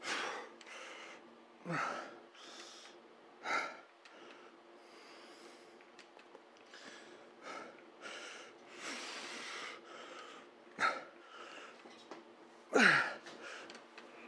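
A man breathing hard with effort through reps of a heavy dumbbell set: sharp breathy exhales every second or two, some voiced as grunts that fall in pitch. The loudest grunt comes near the end.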